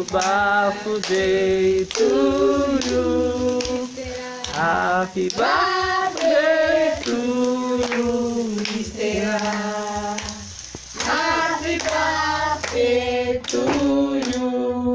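Voices singing a song together with hand clapping.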